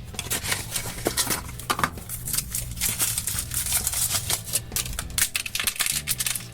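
Foil wrapper of a chocolate surprise egg crinkling and crackling as it is unwrapped by hand, with many small clicks and snaps.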